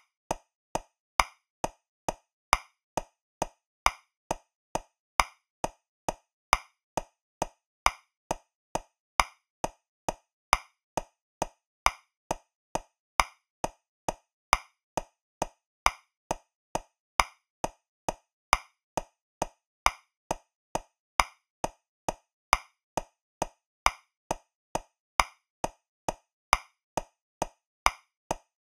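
Metronome clicking at 135 beats per minute in 3/4 time, a little over two clicks a second, with every third click louder, accenting the first beat of each bar.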